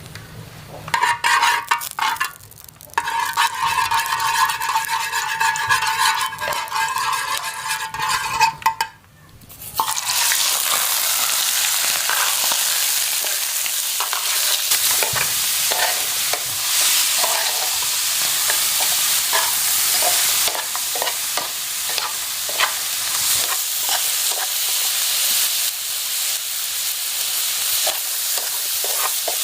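Food frying in a hot pan while being stirred: sizzling with many small scrapes and clicks. For the first several seconds a steady whistling tone runs over it. After a short break about nine seconds in, a louder, steady sizzle takes over.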